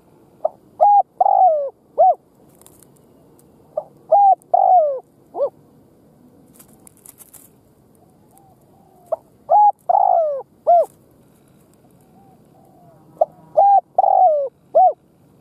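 Spotted dove cooing: four song phrases about four seconds apart, each a few short coos around a longer falling coo.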